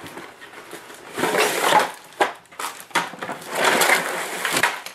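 Cardboard kit box being handled, its inner box slid out of the printed sleeve: two stretches of cardboard scraping and rubbing, about a second in and again near the end, with a few sharp taps between.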